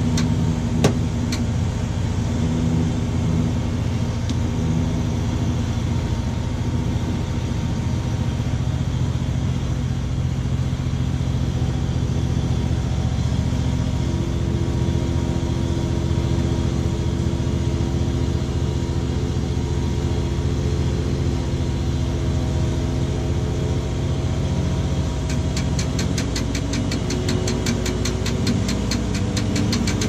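Manitex 50128 boom truck's diesel engine running steadily, heard from inside the crane cab, while the crane swings a load. A hum over it shifts in pitch a few times, and a rapid ticking comes in near the end.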